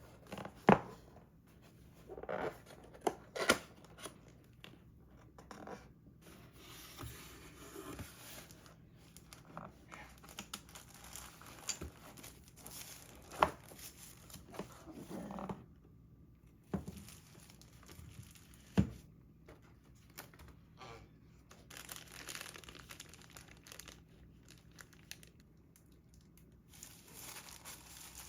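Packaging being handled and opened: paper and plastic crinkling and tearing, broken by several sharp knocks of the box and its contents being handled.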